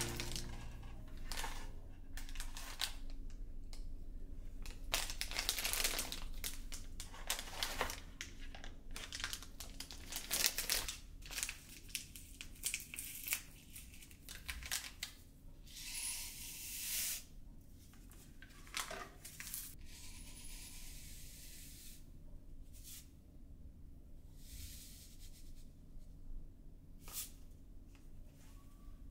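Paper or plastic rustling, crinkling and tearing in irregular bursts, busiest in the first half and sparser later.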